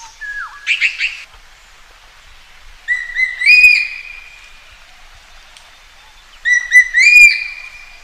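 A magpie calling. Within the first second comes a short dropping note and a harsh call. Then come two matching phrases about three and a half seconds apart, each a few quick rising whistled notes ending in a longer held note.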